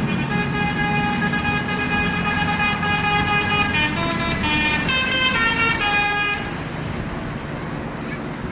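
Bus telolet horn sounding held multi-tone chords, then a quicker run of changing notes. It cuts off about six seconds in, leaving engine and traffic rumble.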